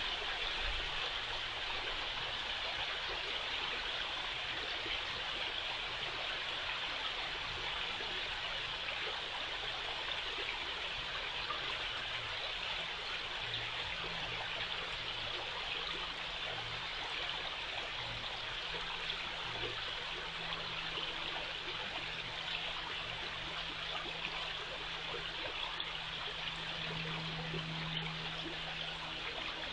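Water running steadily with an even rushing sound, and a faint low hum underneath that grows stronger near the end.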